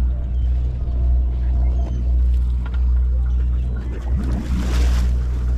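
Sportfishing boat's engine running with a steady low drone, with a brief rush of noise about four and a half seconds in.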